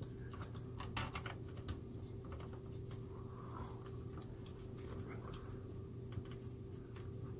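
Scattered faint clicks and scuffs of gloved fingers handling the exit sign's wires and plastic wire cap, over a steady low hum. The clicks are a little stronger in the first two seconds.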